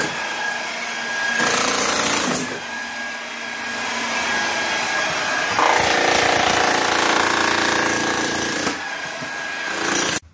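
Electric power tool breaking through ceramic wall tiles, running steadily with a whine, with two louder, harsher stretches about a second and a half in and from about six to nine seconds in, then cutting off abruptly near the end.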